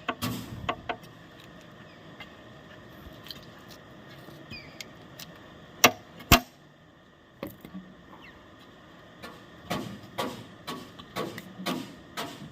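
Metal tools clinking and knocking against metal while the excavator bucket teeth are being changed. Two loud sharp strikes come about six seconds in, then a run of lighter knocks near the end.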